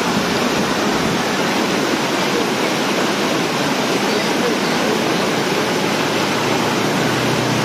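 Floodwater pouring over a low dam and churning into white-water rapids, a steady, loud rush of water with no break.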